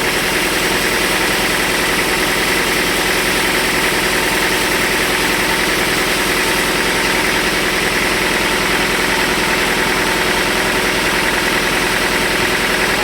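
Sawmill machinery running steadily with an engine-like drone, unchanging throughout.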